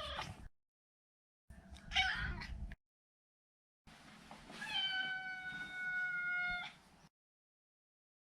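Maine Coon cat meowing: the end of one call, a short meow about two seconds in, then one long meow held at a steady pitch for nearly three seconds, with dead silence between the calls.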